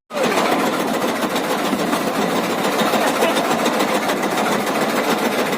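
A fishing boat's engine running steadily, with a dense rushing noise over it.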